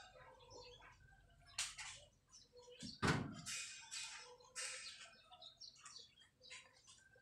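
Small birds chirping repeatedly, with a single sharp thump about three seconds in.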